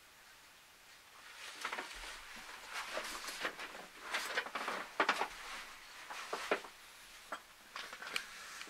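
Irregular rustling and crackling with sharp little clicks, busiest in the middle and thinning out near the end.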